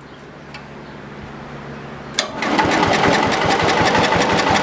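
Kohler engine of an old George Work Bird zero-turn mower. About two seconds in, after a sharp click, it catches and runs loudly with rapid, even firing. It is running on gas primed down the carburettor, because its fuel pump is not feeding it.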